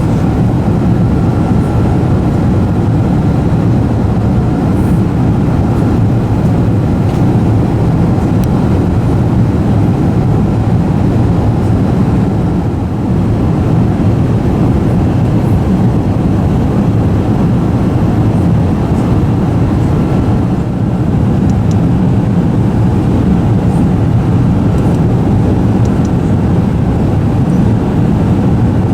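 Steady, loud roar of engine and airflow noise inside the cabin of an Airbus A380 with Rolls-Royce Trent 900 engines, with a faint steady whine above it.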